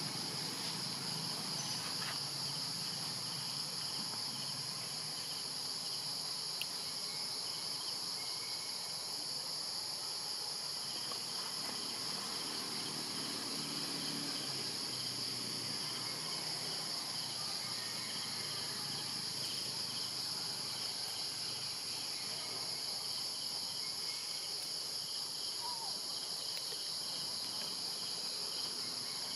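Steady high-pitched chorus of forest insects, with a fainter pulsing insect call beneath it.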